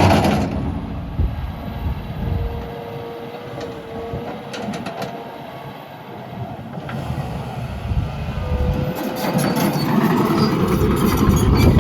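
John Deere 160G LC excavator moving on its steel tracks, its 4.5-liter diesel engine running under load with track clanking and a thin hydraulic whine. The engine and hydraulics grow louder over the last few seconds.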